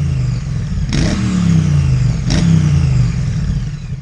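Motorcycle engine revved in sharp blips, each snapping up and then falling away in pitch, two more about a second apart after the first; it fades near the end.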